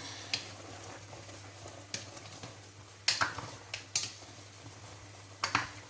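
Cookware being handled: about six short, sharp knocks and clinks of pots and utensils, spread over several seconds, over a steady low hum.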